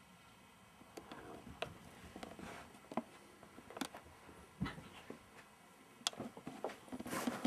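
Irregular soft rustles, clicks and knocks from a handheld camcorder being moved about and a cat moving over bedding, with a dull thump a little past halfway as the cat jumps down from the bed to the floor.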